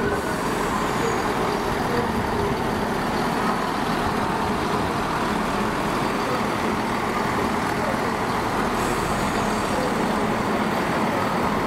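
A train's engine running with a steady rumble and hum, unchanging throughout.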